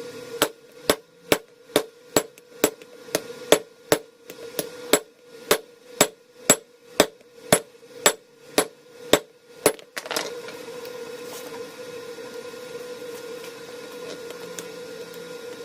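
Blacksmith's hammer striking steel at the anvil in a steady rhythm, about twenty sharp blows at roughly two a second, likely driving a homemade flatter to smooth the hot steel. About ten seconds in the hammering stops and a steady rushing noise takes over, over a constant hum.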